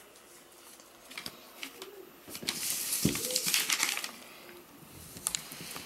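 Five-week-old Pomsky puppies playing on a wooden floor and over a person's fabric-covered legs: light clicks of paws and claws, with a louder burst of rustling and scratching from about two to four seconds in and a soft thump at about three seconds.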